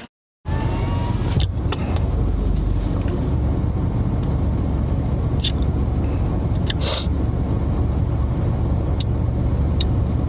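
Steady low vehicle rumble with a few short clicks scattered through it.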